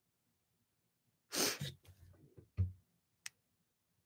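A short, audible breath, a soft low bump a second later, then a single sharp click near the end.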